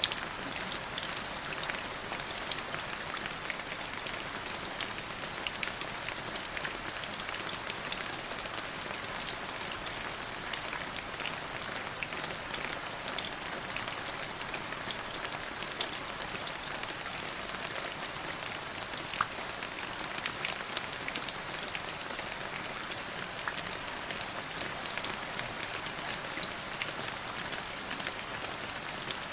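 Steady rain falling on a surface, a dense even hiss with many distinct drops ticking sharply through it.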